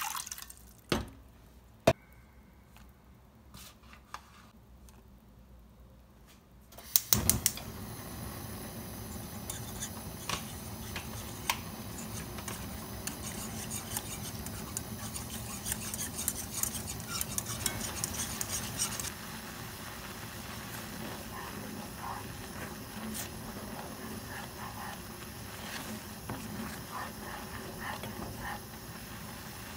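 Wooden spatula stirring flour and water in a nonstick pot, with scattered light knocks and scrapes against the pan. About seven seconds in, a quick run of clicks is followed by a steady hiss that runs on under the stirring, the gas burner lit beneath the pot as the flour paste heats.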